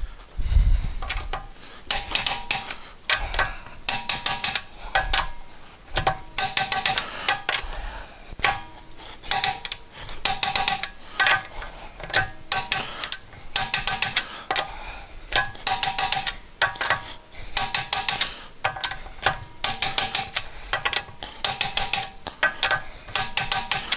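Ratcheting torque wrench tightening wheel lug nuts: short runs of ratchet clicks with a metallic ring, repeated again and again as the handle is swung back and forth.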